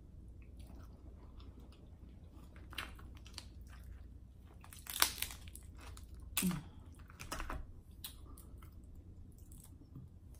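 Close-miked eating: soft chewing and mouth sounds, then crab legs being snapped and pulled apart by hand, with a few sharp shell cracks about halfway through.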